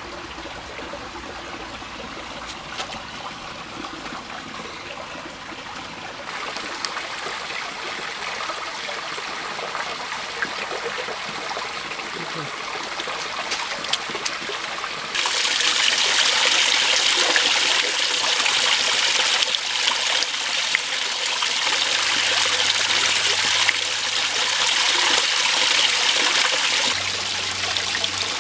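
Creek water running and trickling, a steady rushing noise that grows louder about six seconds in and jumps up sharply about halfway through.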